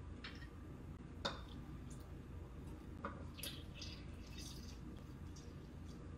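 A lemon half being squeezed in a hand-held citrus press over a plastic food processor bowl: a sharp click about a second in, a smaller one near three seconds, then a brief squish of juice dripping into the bowl.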